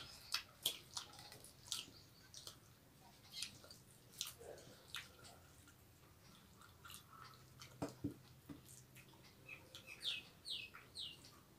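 Two people eating rice by hand from steel plates: faint chewing, lip smacks, and fingers mixing rice against the metal in scattered short clicks. A few short, high, falling chirps come near the end.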